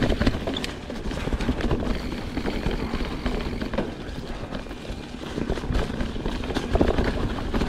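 Mountain bike rolling along a leaf-covered dirt trail: tyres crunching and rustling through dry fallen leaves, with many small clicks and rattles from the bike and a low rumble of wind on the microphone.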